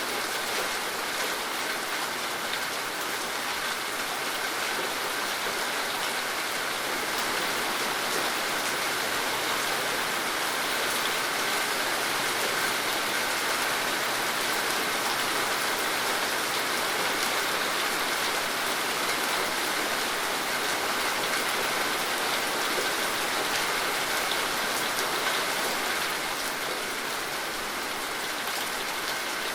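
Steady rain falling on a surface, a continuous even hiss of drops without letting up.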